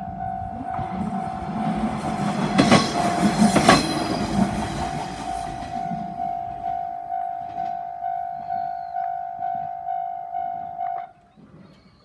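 Japanese level-crossing warning bell ringing steadily about twice a second, its speaker heavily distorted. A Tenryu Hamanako Railway diesel railcar rumbles through in the first half, with two loud wheel knocks about a second apart. The bell cuts off suddenly near the end as the crossing clears.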